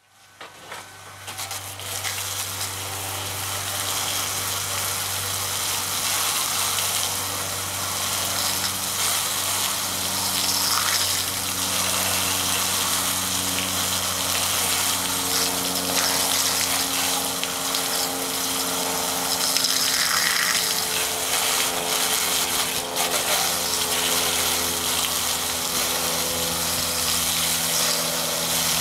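Jets of water spraying and splashing onto a running 120 mm computer fan during an IP55 water-ingress test: a steady hiss of spray over a low steady hum. It fades up over the first couple of seconds, then holds.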